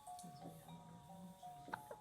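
A simple chime-like electronic melody of single held notes stepping up and down, with one short sharp click near the end.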